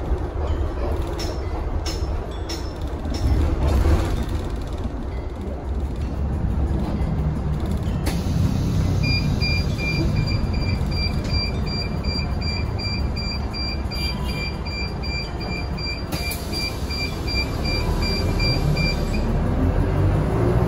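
Cabin sound of a Mitsubishi Fuso FE84 city bus on the move: steady engine and road rumble. From about nine seconds in until near the end, an electronic beep repeats evenly, a few times a second.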